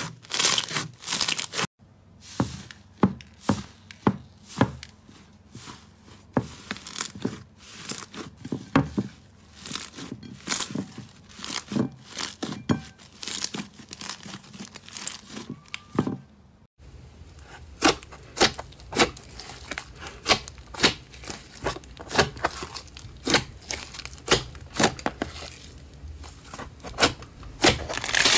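Hands kneading, squeezing and pressing slime, which gives an irregular run of sticky crackles and pops as it stretches and pulls apart. The texture of the sound changes abruptly twice as a different slime takes over.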